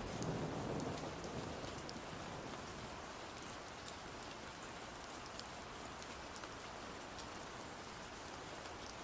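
Steady rain falling, with scattered sharp drop ticks. A low rumble of thunder dies away over the first second or two.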